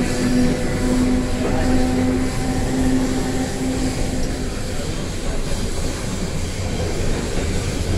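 British Rail Class 317 electric multiple unit running at speed, heard from inside the carriage. A steady electric motor hum fades away about halfway through, leaving the rumble of the wheels on the track.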